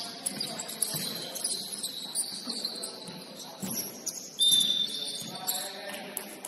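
Basketball shoes squeaking on a hardwood gym floor during play: many short, high squeaks, with a louder, sharper squeal about four and a half seconds in, and a few dull thumps of the ball bouncing.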